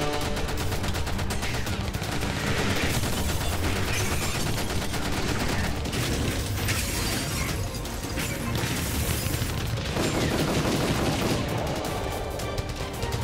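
Action-scene film soundtrack: rapid, sustained gunfire over background music.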